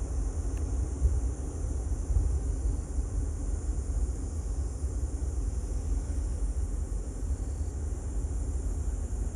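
Wind buffeting the microphone: a steady, fluttering low rumble with an even hiss above it.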